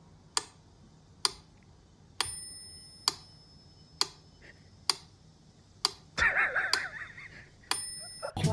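Regular ticking, about one sharp click a second, a few of the clicks with a brief high ringing tone. A louder, noisier sound lasts a second or two about six seconds in.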